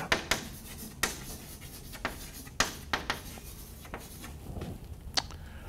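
Chalk writing on a blackboard: irregular light taps and scratchy strokes as an arrow and a word are chalked out, with a few sharper taps about two and a half seconds in and again near the end.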